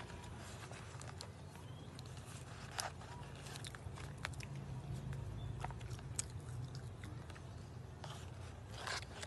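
A person biting and chewing food close to the microphone: scattered crunches and mouth clicks, the loudest about three, four, six and nine seconds in, over a steady low hum.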